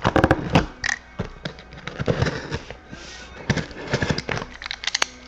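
Sealed cardboard case of trading-card boxes being opened and handled: packaging crackling and rustling, with scattered sharp clicks and knocks.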